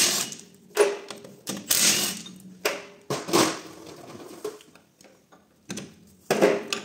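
Cordless impact wrench undoing the half-shaft flange bolts on an Audi multitronic CVT gearbox, run in short rattling bursts. The bursts come about once a second for the first three and a half seconds, then two more follow near the end.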